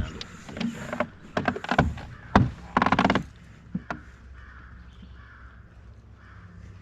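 Several sharp knocks and a short clatter in the first three seconds, then a bird giving harsh calls over and over, about two a second.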